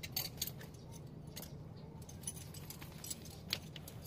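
Scattered light metallic clicks and rattles as a new handbrake cable is worked through the backing plate of a rear drum brake, the sharpest click about three and a half seconds in.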